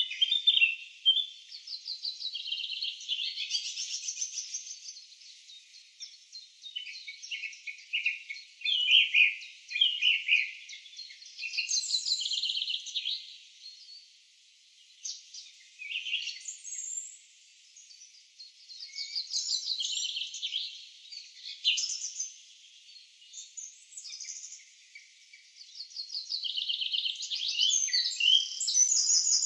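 Recorded birdsong laid in as a nature sound effect: several small birds chirping and trilling over one another in bursts, with a couple of short lulls partway through.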